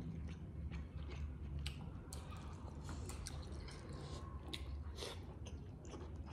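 Two people eating steamed momo dumplings, with irregular wet chewing, mouth smacks and clicks over a steady low hum.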